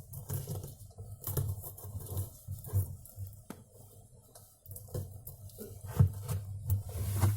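Chisel struck against the seized, worn-out check nut on the gearbox shaft of an LG top-load washing machine, being cut off because it can no longer be undone: a series of irregular sharp taps, about once a second.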